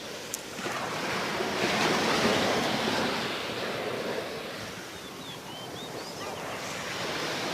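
Sea surf washing onto the shore, swelling about two seconds in, easing off around the middle and building again near the end.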